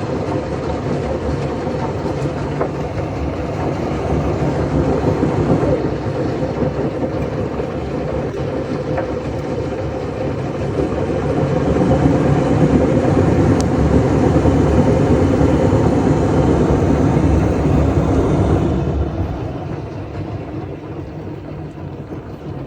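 Haier washing machine running its drum self-cleaning cycle: a steady rumbling churn of the turning drum and water that grows louder about halfway through and eases off near the end.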